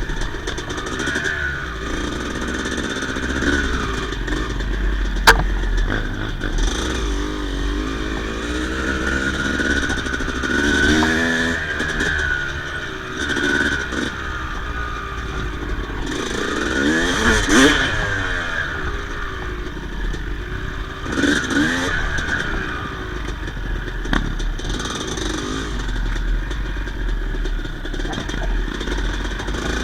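Yamaha YZ250 single-cylinder two-stroke dirt bike engine running and being revved up and down in several swells, the strongest about halfway through. A single sharp click sounds about five seconds in.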